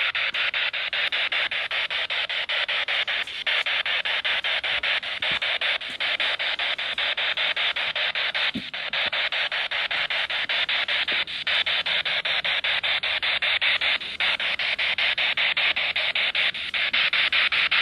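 Steady radio static chopped into rapid, even pulses, as a spirit box makes while it sweeps through stations, with a few brief breaks in the hiss.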